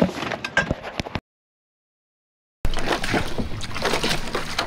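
Short clicks and knocks of windsurf gear being handled, then the sound cuts out completely for about a second and a half. It comes back as choppy splashing water and wind noise with many small knocks.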